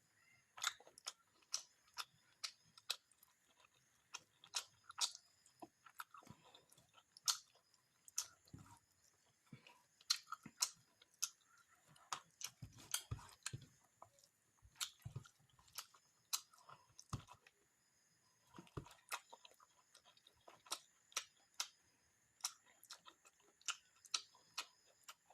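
A person chewing and eating fish with rice: many short, sharp wet mouth clicks and smacks at irregular intervals, a few a second.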